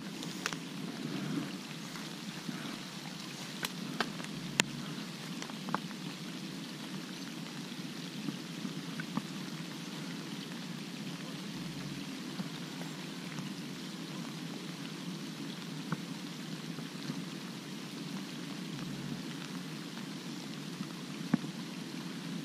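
Steady light rain falling on the lake surface and the vegetation around it, with a few scattered sharp ticks.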